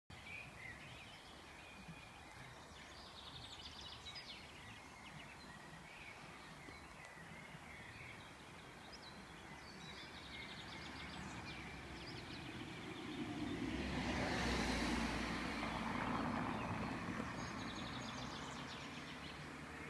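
Small birds chirping and singing in short bursts, with a car passing close by about two-thirds of the way through. Its engine and tyre noise swells, peaks and fades away.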